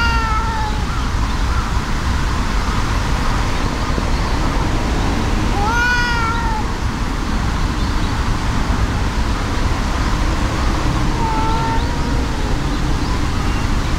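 Two cats in a tense standoff: drawn-out yowls that rise and fall in pitch, one at the start, one about six seconds in and more around eleven seconds in, over a steady low rumble.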